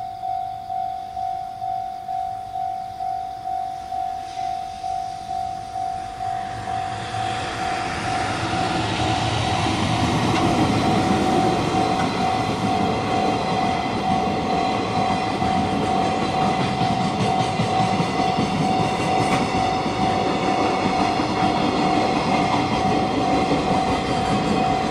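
Japanese level-crossing alarm sounding its steady electronic bell about one and a half times a second. About seven seconds in, a train's rumble builds and runs on as it passes over the crossing, with the alarm still ringing beneath it.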